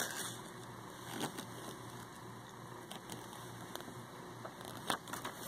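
Faint handling noise of a paper instruction sheet: a few soft clicks and rustles over a low steady hum.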